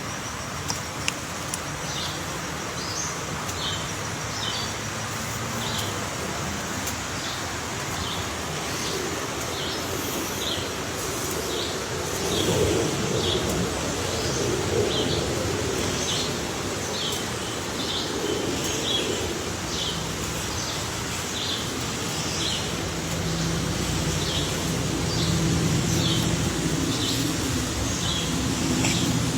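A bird repeating a short, high chirp about once a second, over steady background noise. A low rumble comes up about halfway through and stays.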